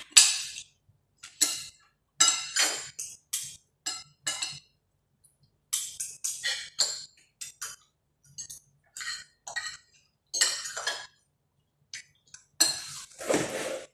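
Metal cutlery clinking and scraping against ceramic plates, in irregular bursts with short quiet gaps, with a longer, fuller scrape near the end.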